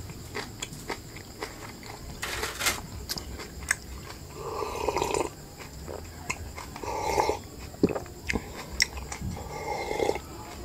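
A person chewing food with wet mouth clicks and smacks, then gulping down a drink in a few swallows.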